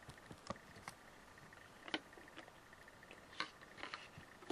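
A few faint, scattered clicks and taps of small objects being handled by hand over quiet room tone.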